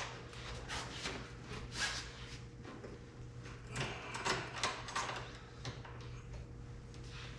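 Scattered brief rustles and scrapes of hands working the convertible soft top's fabric and frame, over a steady low hum.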